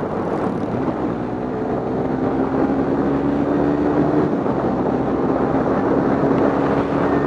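Suzuki Raider 150 Fi's single-cylinder four-stroke engine running on its stock exhaust while riding, with wind rushing over the microphone. The engine hum rises slightly about two seconds in, then holds steady.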